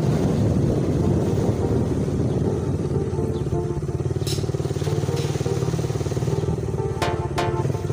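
Motorcycle engine running steadily while riding along a street.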